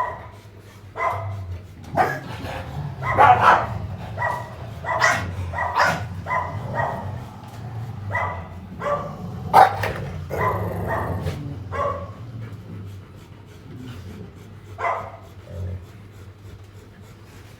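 Dogs barking repeatedly, short barks in irregular runs that thin out in the last few seconds, over a steady low hum.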